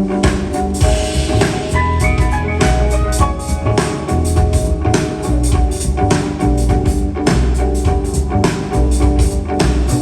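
Jazz trio playing, with piano over a busy drum kit and low bass notes.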